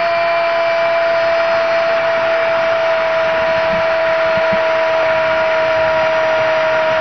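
A television commentator's long, held goal cry, one steady note that drifts slightly lower, over the noise of a cheering stadium crowd.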